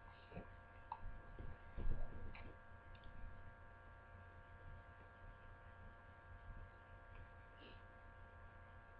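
Steady electrical hum of several fixed tones over a low rumble, with a few short low thumps in the first three seconds, the loudest about two seconds in.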